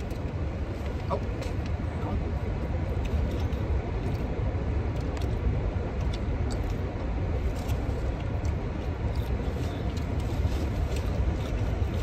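A steady low rumble with faint scattered clicks and rustles over it.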